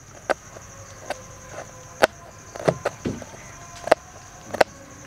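Kitchen knife chopping a green bell pepper on a plastic cutting board: sharp, irregular taps of the blade striking the board, about six in five seconds.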